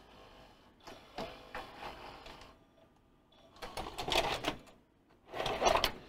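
Sharp DV-NC65's VHS deck mechanism unloading: motor whirring with gears and guide arms clicking and clunking as the tape-guide poles pull back, in three short spells.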